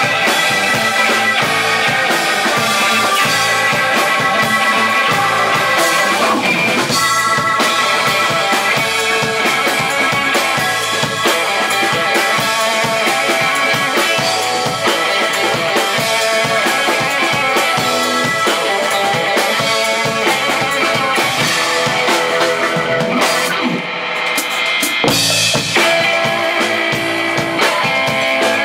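Live band playing an instrumental groove on electric keyboard, electric guitars and drum kit, with a steady beat. The top end drops away briefly near the end before a loud accented hit brings the full band back in.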